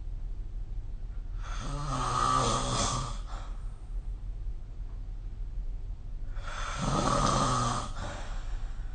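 A person snoring: two loud snores about five seconds apart, each lasting under two seconds, over a steady low hum.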